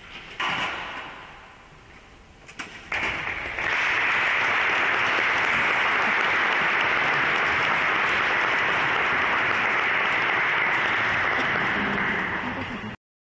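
An audience applauding steadily, starting about three and a half seconds in after a sudden knock near the start; the applause cuts off abruptly near the end.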